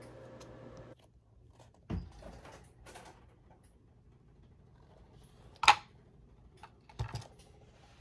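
Handling clicks and knocks of a makeup brush holder being picked up and set down on a mirrored glass tray: a few light taps, then one sharper knock about two-thirds of the way through and a couple of softer ones after it.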